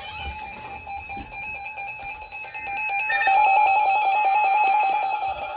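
Electronic alert tones: a steady beep tone, then about three seconds in a louder, fast run of pulsing beeps.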